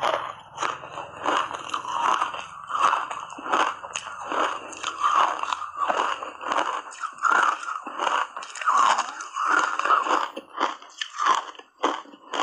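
Matcha-powder-coated ice being bitten and chewed close to a clip-on microphone: a quick, steady run of crisp crunches, about two a second.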